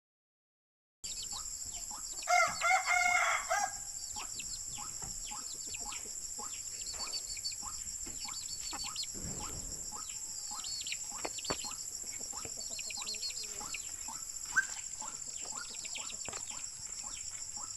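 Field ambience: a steady high-pitched insect drone with many short, falling bird chirps. About two seconds in, a louder call of several stacked tones from a fowl-like bird lasts about a second and a half.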